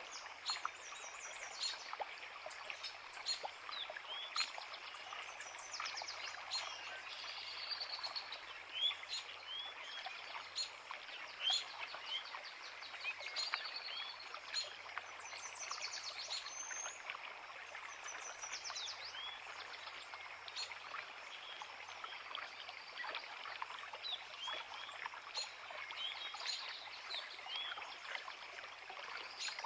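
A creek flowing steadily over rocks, with several small songbirds chirping and trilling over it throughout.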